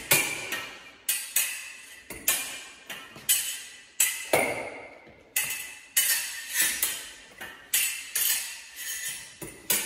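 Steel foil blades clashing again and again in a fencing lesson: sharp, ringing metallic clinks, about two a second and often in quick pairs, as the blades beat and parry.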